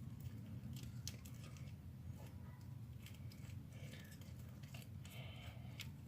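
Faint sticky clicks and crackles of homemade slime being worked and pulled in the hands, with the slime sticking to the skin, over a steady low hum.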